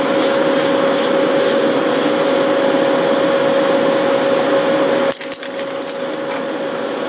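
Aerosol spray paint can hissing steadily as a coat of paint is sprayed onto a plastic model truck body, over a steady hum. The spraying stops about five seconds in, leaving the quieter hum.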